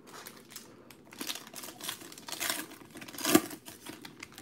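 Foil wrapper of a Panini Prizm baseball card pack being torn open by hand: a run of crinkling, crackling rustles, the loudest tear about three seconds in.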